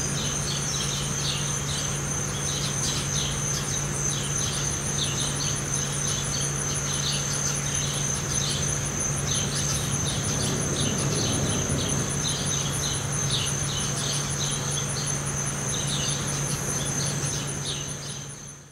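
Steady insect chorus of crickets or katydids: a continuous high shrill with a faster pulsing trill above it. Scattered short bird chirps run through it over a low steady hum, and the sound fades out at the very end.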